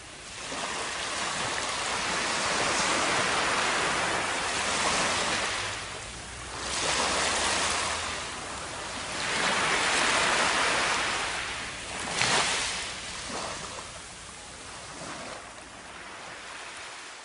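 Ocean surf washing in over sand, the waves swelling and drawing back several times.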